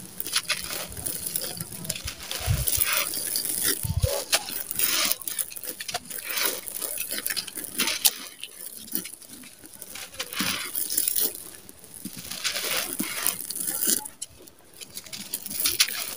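Dry sand-cement chunks crushed and crumbled between bare hands: gritty crunching in repeated bursts, with loose grains and grit trickling down.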